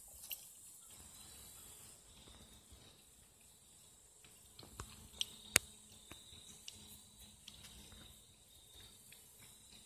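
Steady high-pitched chirring of crickets. A few faint clicks come about halfway through, with one sharp click a little after that.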